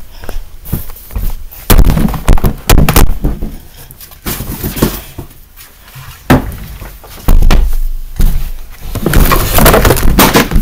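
Irregular knocks, thumps and clattering close to the microphone, with loud sudden hits about two seconds in and again a few seconds later, and something falling over.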